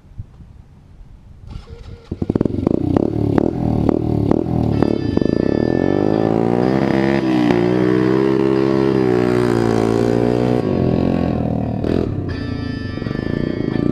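Single-cylinder four-stroke engine of a 1986 Yamaha Badger 80cc ATV riding past, its note climbing and then falling away, with background music over it from about two seconds in.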